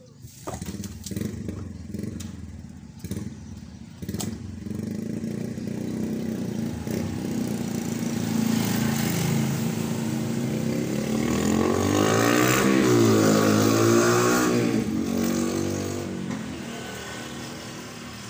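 A motor vehicle's engine passing by, growing louder over several seconds, peaking about two-thirds of the way in with its pitch dropping as it goes past, then fading. A few sharp knocks are heard in the first few seconds.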